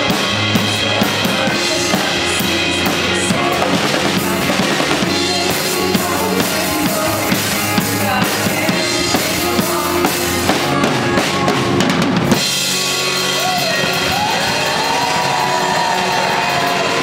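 Live band playing an upbeat worship pop-rock song: drum kit with steady kick and snare, electric guitars and keyboard. About twelve seconds in, the drums and bass drop out and the band carries on more lightly.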